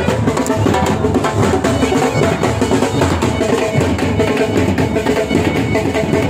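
Pakistani fauji wedding band's drums, dhol and side drums, beating a steady, dense rhythm.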